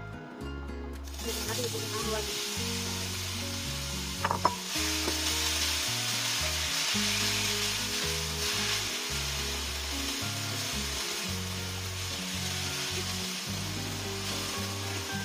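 Shredded daikon radish frying in hot oil in a wok, stirred with a spatula. A loud sizzle starts suddenly about a second in as the radish hits the oil, with one sharp knock about four seconds in. Background music with a bass line plays underneath.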